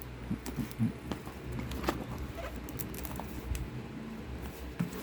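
Hands handling a cardboard packaging box: scattered light taps, clicks and scrapes at irregular intervals.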